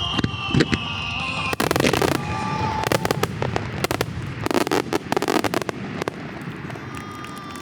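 Aerial fireworks bursting and crackling in rapid volleys, thickest about one and a half seconds in and again near five seconds, with a song playing under them. The bursts thin out toward the end.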